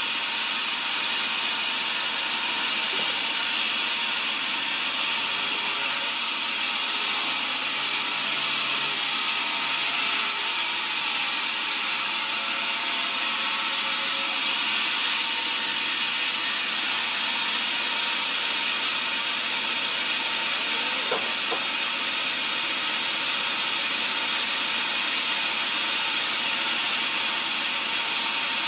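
Log band sawmill running and sawing a cempaka (champak) log lengthwise, a soft wood: a steady, even rushing noise that holds the same pitch and level throughout.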